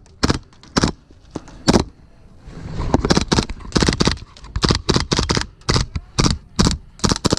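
Airsoft guns firing: a run of sharp cracks, a few per second and irregularly spaced, some coming in quick clusters.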